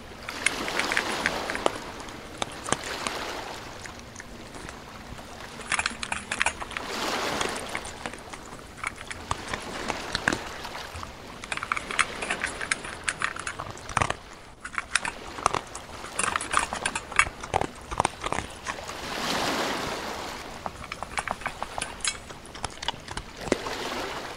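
Dogs splashing about in shallow water and running, with many light jingling clicks that fit their collar tags.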